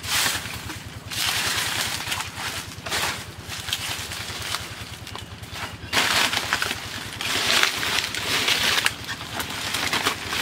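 Dry banana leaves rustling in repeated bursts as they are pulled and handled, loudest from about six to nine seconds in.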